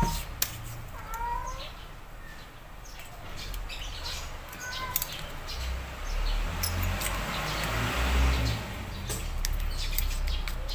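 Handling noise from fitting a smartphone into the clamp of a phone holder on a microphone-stand arm: scattered clicks and knocks of the clamp and ball joint, with rubbing and rustling, heaviest in the second half.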